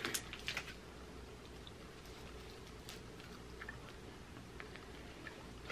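Faint chewing of a bite of beef stick: a few small, scattered mouth clicks and smacks over a low steady room hum.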